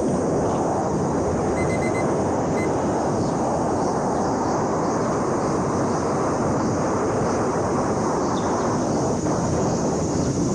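Steady rushing wind noise buffeting the microphone, even throughout, with no clear motor or propeller whine standing out.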